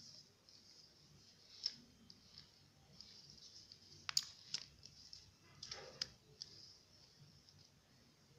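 Faint, scattered plastic clicks from a 48-piece Rubik's Snake as its wedges are turned into new positions, about half a dozen clicks spread out with pauses between.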